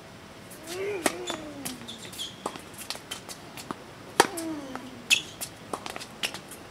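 Tennis ball struck hard by a racket, on a serve about a second in and on a forehand about four seconds in, each hit with a falling vocal grunt from the hitter. Between them come fainter pocks of the ball bouncing and being returned from the far end of the court.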